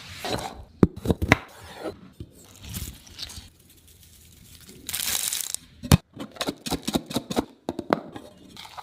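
Crisp chaat ingredients being crushed and handled: a run of irregular sharp crackles and crunches, with a short rushing sound about five seconds in.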